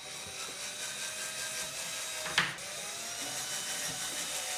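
Cordless drill running steadily as it bores into a hard plastic part, with one sharp crack about halfway through.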